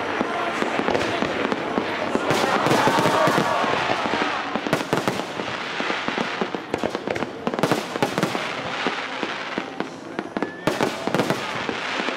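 Fireworks display: dense crackling and popping of bursting shells, thickest and loudest a few seconds in, thinning to separate sharp cracks later.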